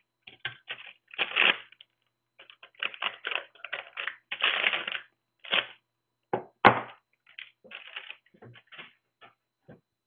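A hard drive's anti-static plastic bag being snipped open with scissors and crinkled as the drive is pulled out: irregular crackling rustles with short pauses. A single sharp knock about two-thirds of the way in is the loudest sound.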